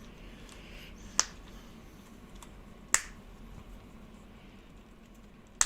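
Three sharp clicks, about one and a half to two and a half seconds apart, as the e-bike's wiring connector plugs are pulled apart.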